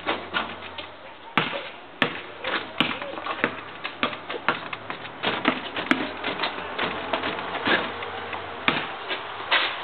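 Basketball bouncing on asphalt as it is dribbled and shot: an irregular string of sharp thuds, some loud and some faint.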